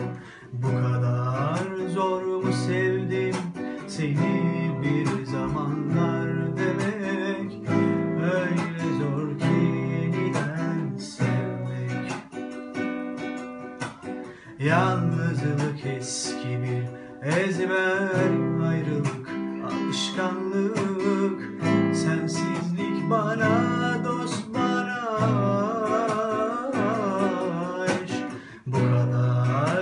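An acoustic guitar strummed in steady chords, with a voice singing a melody over it.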